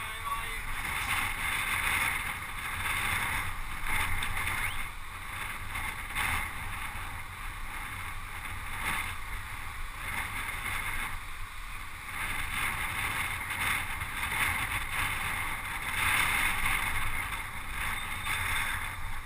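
Wind rushing over the microphone, with tyre and road rumble, from a road bicycle riding in a pack of racers. It is a steady rushing noise that swells and fades every few seconds.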